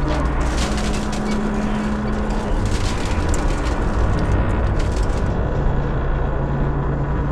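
Tower crane's metal structure creaking and grinding: dense crackling and ticking over a steady low hum whose tones shift in pitch a few times.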